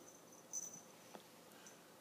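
Small bell on a kitten's collar tinkling faintly, a short high ring about half a second in and again briefly later, with a single soft tap just past the middle.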